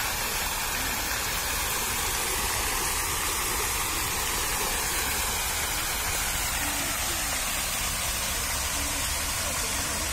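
Fountain jets spraying and splashing into a stone basin: a steady rushing hiss of falling water.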